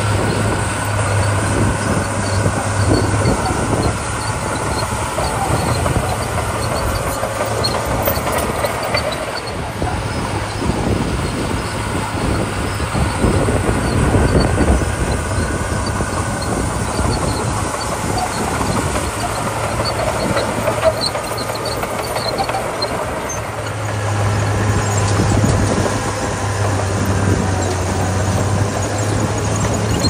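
Crawler bulldozer's diesel engine running steadily under load with a low hum, as the machine pushes loose crushed gravel with its blade, the hum swelling near the end.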